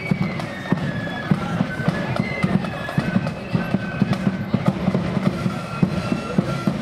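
Marching flute band playing: a high melody over rapid side-drum strokes and heavy bass-drum beats.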